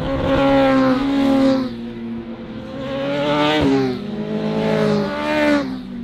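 Classic superbike racing motorcycles passing one after another at speed in three loud swells, each engine note dropping in pitch as the bike goes by, with a gear change in the middle pass.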